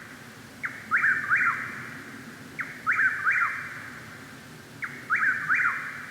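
Chuck-will's-widow singing its repeated three-part song, a faint first note then two loud slurred notes, three times about two seconds apart, over a faint steady background chorus.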